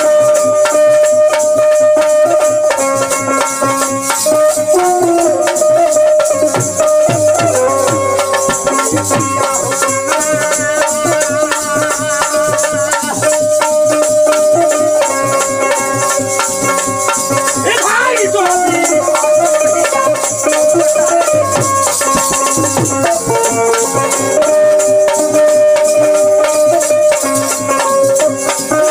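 Bhojpuri folk music: a harmonium holds steady notes over a dholak drum, while a hand-held rattle is shaken in a fast, continuous rhythm.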